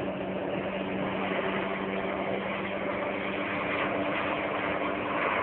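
Helicopter flying overhead: steady rotor and engine noise with a low, even hum.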